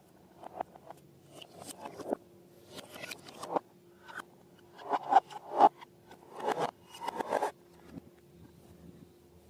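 Slime being squeezed and stretched by hand, giving irregular sticky crackling and squelching bursts, loudest in the middle of the stretch.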